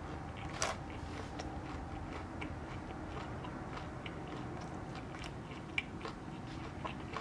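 A man chewing a mouthful of crispy panko-breaded fish sandwich with his mouth closed: faint, scattered crunches and mouth clicks, one a little sharper under a second in.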